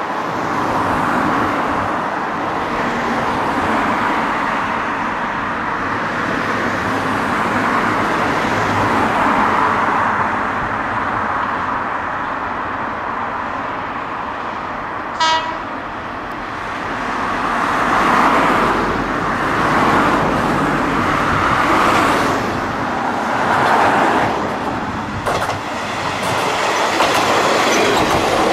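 Kominato Railway KiHa 200 diesel railcar running as it approaches and passes close by, its engine and wheels making a steady noise that swells in the second half. About halfway through it gives one short, high horn toot, and a few wheel clicks come near the end.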